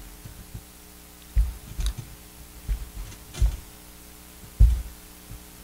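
About five soft thumps and knocks, spread over a few seconds, from a tablet in a rugged case being handled on a desk, heard over a low steady electrical hum.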